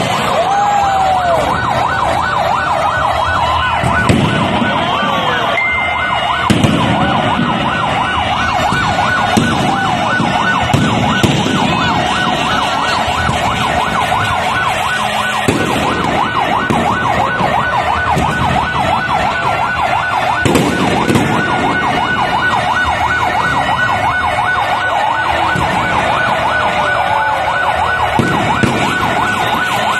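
Fireworks display: many whistling fireworks shrieking at once in a dense, unbroken chorus of gliding whistles, with the deep booms of bursting shells every few seconds.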